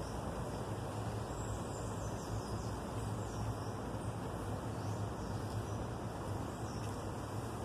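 Wind rustling through a clump of bamboo leaves: a steady, even hiss, over a low steady hum. Faint high chirps sound a few times.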